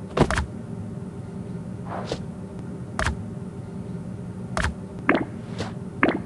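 About eight sharp thumps and knocks at irregular intervals, over a steady low hum.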